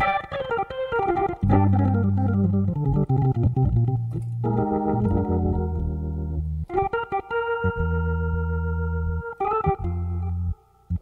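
Hammond B3 organ played solo: a fast descending run of notes at the start, then held chords over low bass notes, cutting off briefly just before the end.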